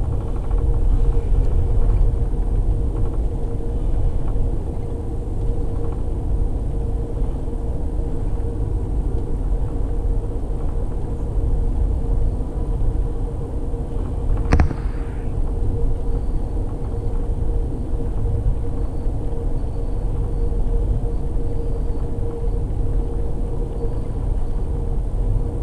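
Amtrak passenger train running at speed, heard from inside the car: a steady low rumble with a constant hum, and one sharp click about halfway through.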